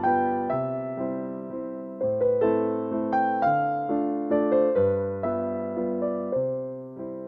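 Background piano music: a gentle piece whose notes and chords are struck and left to fade, changing about every half second to a second.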